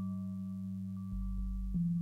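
Modular synthesizer patch, Plaits driven by the 0-Coast's stepped random voltage through a 2hp Tune quantizer, playing sustained, ringing electronic tones with a fading bell-like overtone. A deep bass note comes in about a second in, and the main pitch steps down to a new quantized note near the end.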